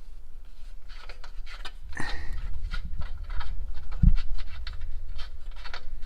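A 17 mm wrench working the O2 sensor loose from the motorcycle exhaust: irregular short metallic clicks and scrapes, with a dull thump about four seconds in.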